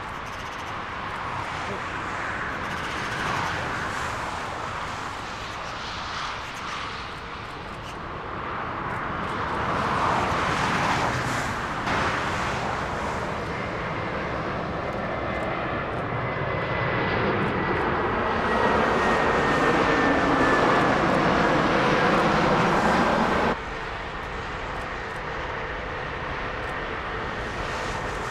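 Jet airliner's engines passing, growing louder over about twenty seconds, with a high whine that slowly falls in pitch. The sound drops abruptly about four seconds before the end.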